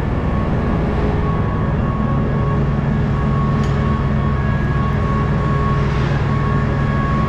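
Steady, unchanging mechanical drone of running machinery: a strong low hum with a thin, steady whine above it.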